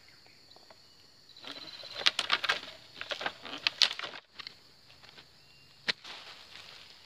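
Black-and-silver plastic mulch film crackling and rustling as it is pulled out over a soil bed, in a run of crinkly bursts between about one and a half and four seconds in. A single sharp click comes near the end.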